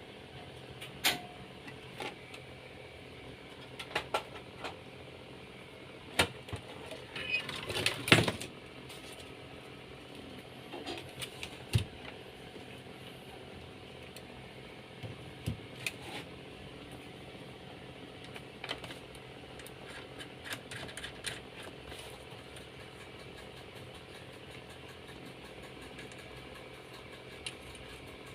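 Scattered clicks and light knocks from small objects being handled, over a faint steady hum.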